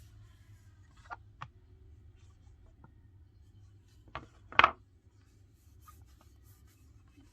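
Handling of a phone and silicone case: light rubbing with a couple of small clicks, then two sharper knocks a little past the middle, the second the loudest, over a faint low hum.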